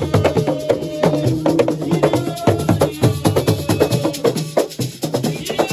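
Assiko percussion music: fast, dense drumming with sharp clacking strikes, and held melodic notes over the rhythm.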